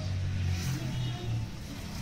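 Low engine rumble of passing street traffic, strongest in the first second and easing off after.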